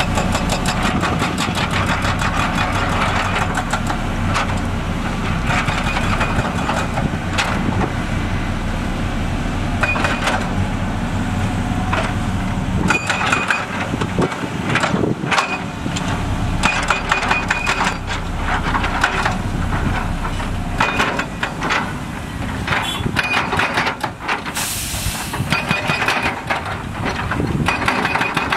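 Heavy diesel construction machinery running steadily, with repeated knocks and clanks of rock and steel, several short high squeaks, and a brief burst of hiss near the end.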